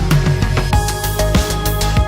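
Electronic background music with a steady, driving beat and a heavy bass line.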